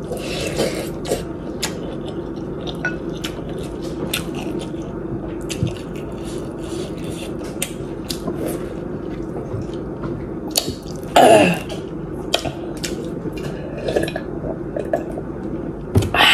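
Eating sounds from a mukbang of spicy noodle soup: wooden chopsticks clicking against a glass bowl, with slurping and chewing. A loud falling exclamation comes about eleven seconds in, and another loud outburst comes near the end.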